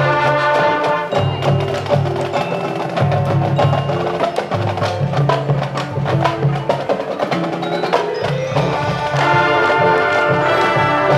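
High school marching band playing its competition show, with many sharp percussion strikes and ringing mallet notes over held low notes that change about once a second. Brighter, fuller high parts come in about nine seconds in.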